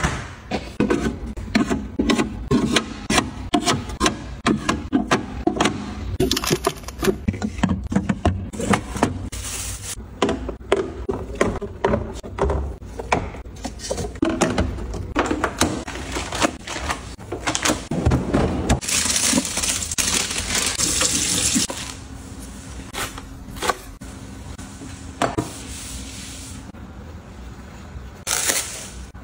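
Restocking a refrigerator: a stream of clinks, taps and knocks as bottles, jars and containers are handled and set onto the door shelves. There are a few seconds of hiss about two-thirds of the way through.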